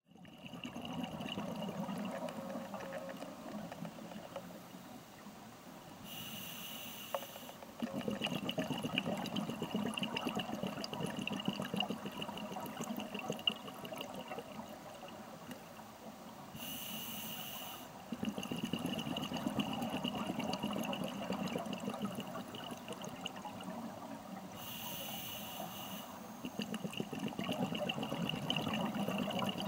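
Scuba diver's regulator breathing, recorded underwater: three short hissing inhalations, each followed by a long bubbling, crackling exhalation, in a slow regular cycle. A faint steady high whine sits underneath.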